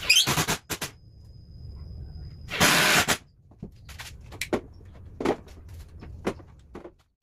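Quick clamps being fitted to a plywood cabinet frame: a quick run of sharp clicks and knocks at the start, a louder half-second scrape about three seconds in, then scattered light clicks and taps.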